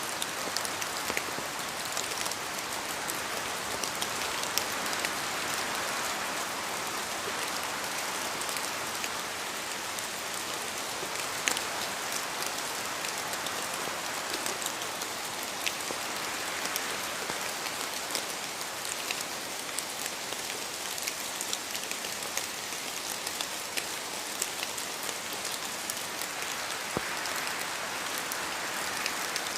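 Steady rain falling, an even hiss with individual drops clicking sharply on a hard surface.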